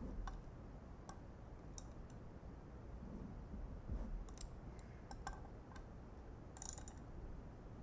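Faint, irregular light clicks and ticks of a wrench working the hub bolts during final tightening, with a short cluster of clicks near the end and a couple of soft low knocks.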